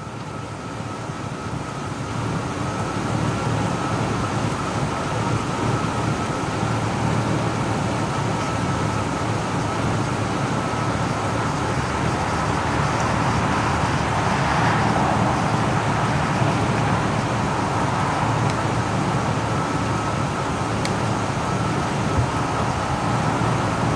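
Steady outdoor rumble and hiss with no clear single event. It grows louder over the first few seconds and swells around the middle.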